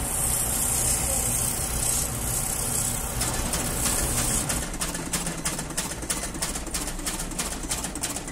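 Shoe repair shop machinery running: a steady motor sound with a high hiss, then a regular clacking of about three strokes a second from about halfway through.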